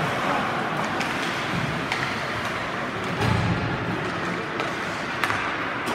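Ice hockey in play, heard from the stands: a steady hiss of skates and arena noise, with three sharp stick-and-puck clicks and a brief low swell a little past halfway.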